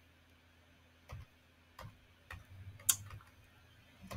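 Scattered, irregular clicks of computer keys being tapped during a web search, with one sharper click about three seconds in.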